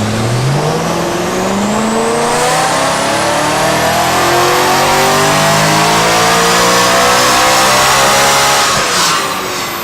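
BMW E90 M3's S65 V8 pulling at full throttle on a dyno through a primary-cat-delete exhaust. The engine note rises steadily for about nine seconds, then falls away suddenly as the throttle is lifted near the end.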